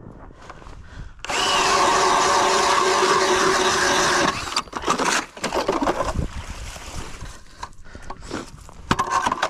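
Cordless drill spinning an ice auger through lake ice: the drill motor runs loud and steady for about three seconds and stops abruptly, followed by irregular grinding and crunching of the auger in the ice, with another short burst of the drill near the end.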